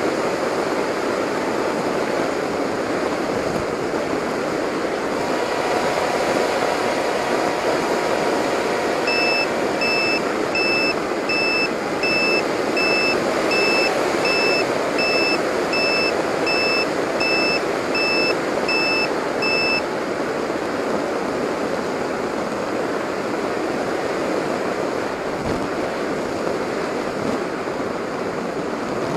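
Onboard sound of a Delta Speed XS RC flying wing in flight: a steady rush of air with motor noise. From about a third of the way in, a high electronic beep repeats about fifteen times, roughly three beeps every two seconds, then stops.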